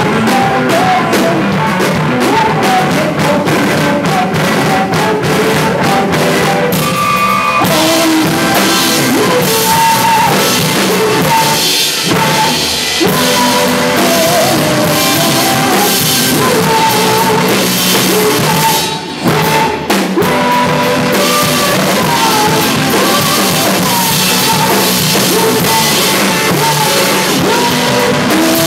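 Live rock band playing loudly: a drum kit and an amplified electric guitar, with singing. The playing breaks off for a moment about two-thirds of the way through.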